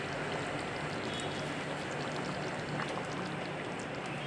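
Curry gravy simmering in a wide pan: a steady low hiss with faint scattered bubbling pops.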